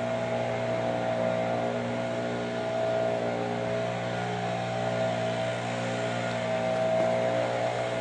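Diesel locomotive engine running, a steady drone of several held tones that barely changes.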